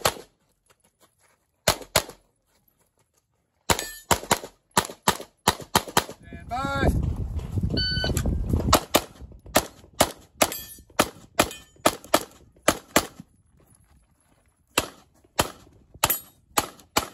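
Strings of fast pistol shots, several a second, from USPSA Carry Optics stage runs. A shot timer gives its electronic start beep just before eight seconds in, and a new string of shots follows.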